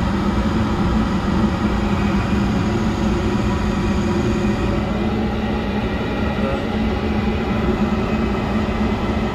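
Trane S9X gas furnace running in its heating start-up: steady hum of the draft inducer motor with the rush of the lit burners, before the circulating blower has come on.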